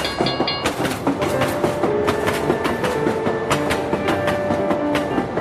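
Train sound effect of wheels clattering rapidly over rail joints, a dense run of clicks. A steady tone ends within the first second.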